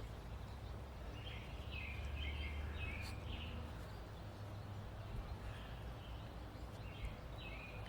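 Faint bird chirps in the background, a few short clusters of calls, over a low steady hum.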